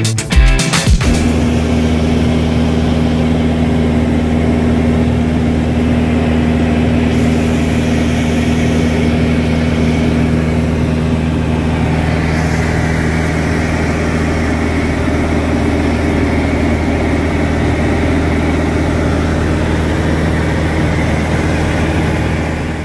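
Van's RV-14's Lycoming IO-390 engine and propeller running steadily at cruise power, heard inside the cockpit as an even drone. It starts about a second in as the music cuts away.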